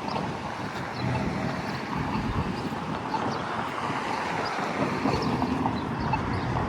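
Steady rumble of passing traffic, slowly growing louder, with wind noise on the microphone.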